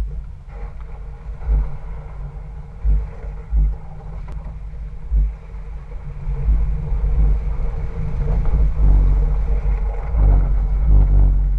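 Stock exhaust of a 2010 Infiniti G37x's 3.7-litre V6 while driving, a steady low engine note broken by a few short low thumps in the first half. About halfway through the engine grows louder as it pulls harder.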